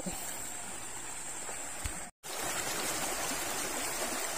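River water flowing, a steady rush of noise from a strong current, broken twice by brief dropouts to silence.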